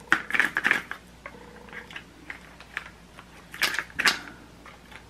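Lip gloss packaging being handled and opened: cardboard box and plastic wrapping rustling and scraping, with small taps and clicks, in bursts at the start and again around three and a half to four seconds in.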